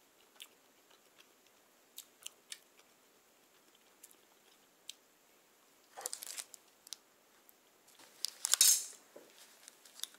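Scattered soft clicks, then two short crinkly rustles of handling, one about six seconds in and the loudest near the end, as a hand lifts a soft condensed-milk baguette off its paper wrapper.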